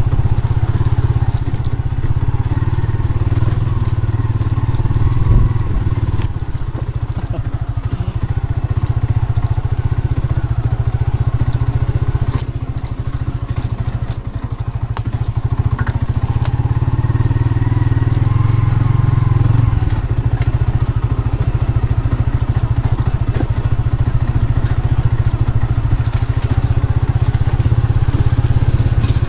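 Motorcycle engine running steadily at low speed on a rough dirt path, with scattered clicks and rattles from the bike over the bumps; the engine eases off briefly near the middle.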